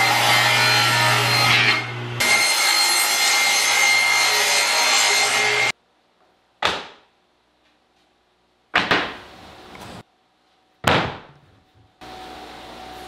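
Table saw cutting through a plywood sheet, a loud steady blade-and-wood noise with a short dip about two seconds in, stopping about six seconds in. Then three sharp knocks about two seconds apart as cut wood pieces are set down on a wooden worktable.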